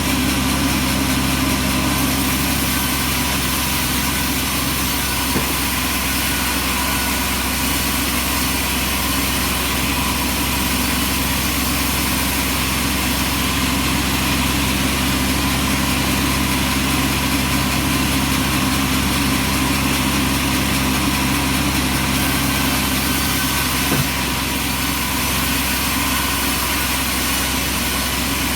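Bandsaw sawmill's engine running steadily at an even speed, with a constant hum and hiss and a couple of small knocks.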